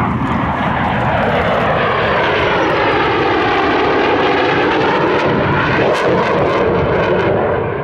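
Jet engines of a NASA F-15D and an F-18 flying past together: a loud, steady jet rush with a sweeping, phasing tone that dips and rises again as they go by, easing off near the end.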